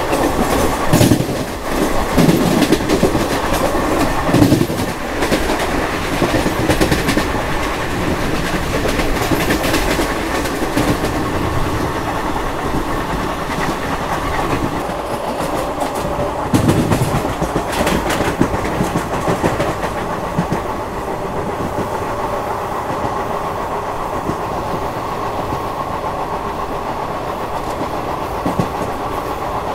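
Express passenger train running on the rails, heard from on board, its wheels clattering over rail joints. There is a run of sharp knocks over the first ten seconds or so, then steadier running.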